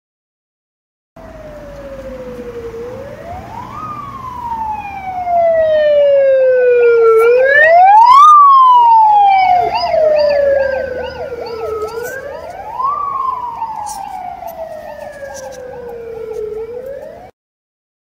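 Ambulance siren wailing in a slow cycle: each time the pitch rises quickly, then slides down slowly over about three seconds. It starts about a second in, grows louder toward the middle, fades again and cuts off suddenly near the end.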